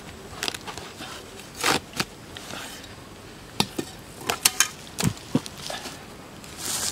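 A knife digging and prying out the crumbly rotted core of a tree-trunk section: a run of irregular knocks, crunches and scrapes. The hollowed log is also tipped over onto dry leaf litter, with a rustling scrape near the end.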